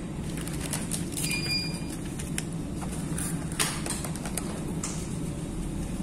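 Fast-food restaurant room tone: a steady low hum with scattered light clicks and rustles of food wrapping being handled at the table, and a brief high tone about a second in.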